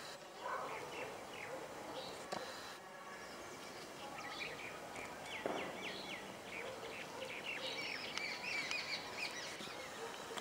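Birds chirping in short, quick runs of notes over a steady outdoor background, busiest in the second half.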